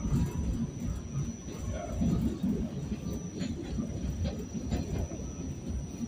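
R46 subway car running between stations, heard from inside the car: a steady low rumble with faint clicks of the wheels over the track, and a thin steady high whine.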